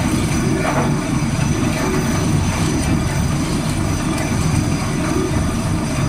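Borehole drilling rig running: a steady, loud engine and machinery noise that stays at one level throughout.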